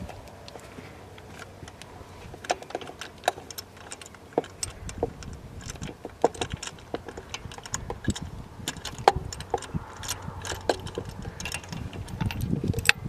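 Metal hand tools clicking and clinking irregularly against engine parts, many short sharp ticks over a low handling rumble.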